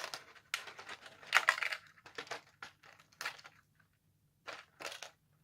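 Clear plastic blister packaging of an anime figure's accessories being handled, crackling and crinkling in irregular short bursts, with a brief pause shortly before the end.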